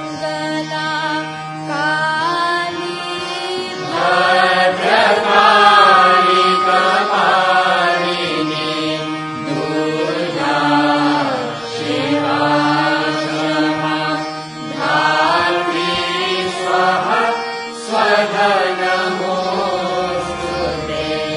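Indian devotional song: chanted, hymn-like singing that glides and wavers in phrases of a few seconds, over a steady drone.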